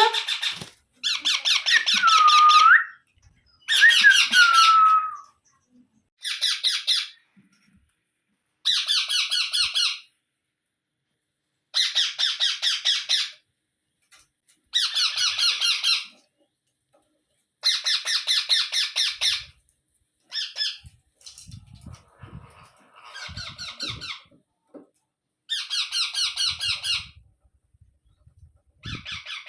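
Indian ringneck (rose-ringed) parakeets squawking in a series of about ten harsh, rapidly pulsed calls, each lasting a second or so. Two of the early calls carry a gliding whistle.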